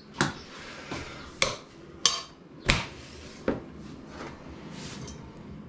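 Kitchen utensils and a metal saucepan knocking and clinking on a counter: about five separate sharp knocks over a few seconds, one with a brief metallic ring.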